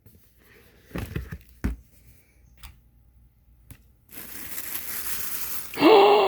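A parcel being opened by hand: a few knocks and crackles of handling, then about four seconds in a long rustling tear of packaging. Near the end comes a loud, drawn-out vocal exclamation that falls in pitch.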